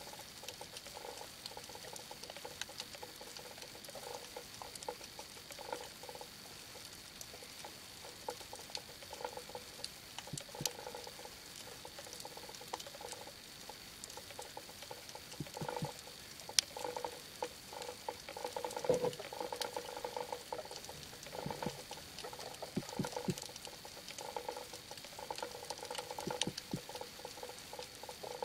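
Underwater ambience picked up through a camera housing: scattered sharp clicks and crackle, with muffled bubbling and water movement coming and going, busiest in the second half. A thin steady high tone runs underneath.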